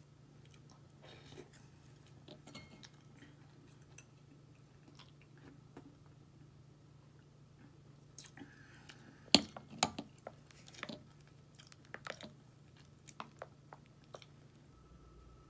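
A metal spoon scooping frothed milk foam from a glass cup, with scattered light clinks and taps against the glass and saucer. The loudest cluster of knocks comes about nine to eleven seconds in. A faint steady hum runs underneath.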